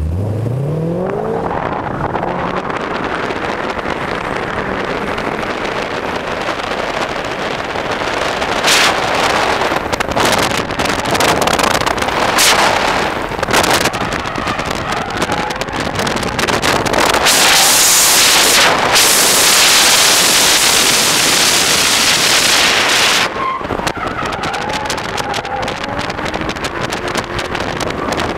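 Holden VE Commodore SS-V's 6.0-litre V8 revving hard under a drift, with tyres squealing and a heavy rush of wind and road noise. The rush swells loudest for several seconds past the middle, then drops back sharply.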